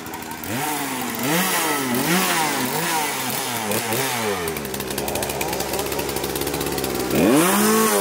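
Chainsaw revved up and down over and over, dropping to a steady idle about halfway, then revved once hard near the end.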